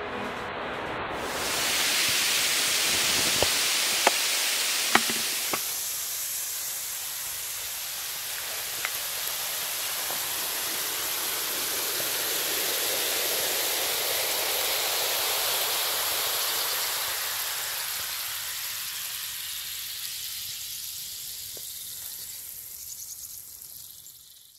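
Soda foam fizzing on sand: a steady hiss of bubbles bursting, with a few small clicks in the first seconds. It slowly fades away near the end.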